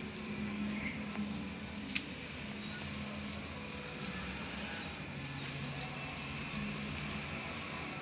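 Background ambience: a low steady hum that drops in pitch about five seconds in, with two sharp clicks about two and four seconds in.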